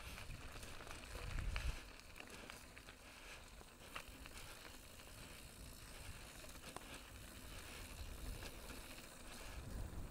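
Mountain bike rolling down a loose dirt and gravel trail: tyres crunching over stones with scattered clicks and rattles, and wind rumbling on the helmet camera's microphone, strongest about a second in and near the end.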